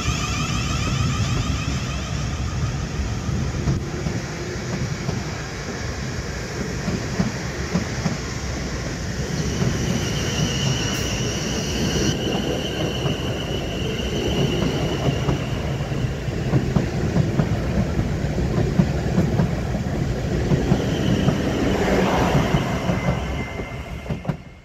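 Passenger train running on the track, with a steady rumble of wheels on rail. A high wheel squeal comes in twice, around the middle and again near the end, and the sound cuts off suddenly.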